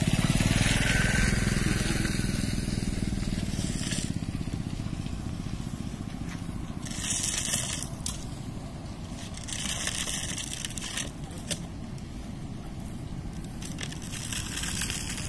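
Dry grass and straw rustling and crunching in a few short bursts as a freshly caught fish is handled on the ground, over a steady low rumble that is heaviest in the first couple of seconds.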